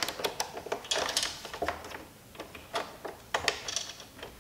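Irregular small clicks and scraping of plastic and metal as flat spade connectors are worked off the tabs of the grounds-container microswitch inside an opened Melitta fully automatic coffee machine, with wires rustling.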